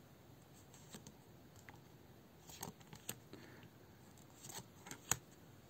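Tarot cards being handled: faint, scattered clicks and soft rustles as cards are slid and set down one after another, the sharpest tap about five seconds in.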